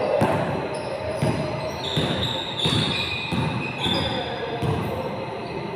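A basketball bouncing and sneakers squeaking on an indoor court during a game, several short high squeaks among the bounces, echoing in a large gym hall.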